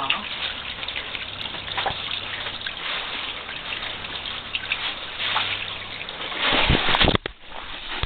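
Small spring water trickling and splashing steadily over rock. About six and a half seconds in, a louder rush with several low thumps cuts across it.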